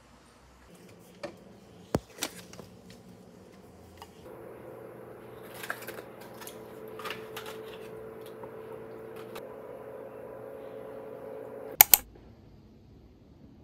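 Clicks and light knocks of things being handled in a kitchen, then a steady mechanical hum from a kitchen appliance, running for several seconds with small clicks over it. Two sharp loud clicks near the end, after which the hum is gone.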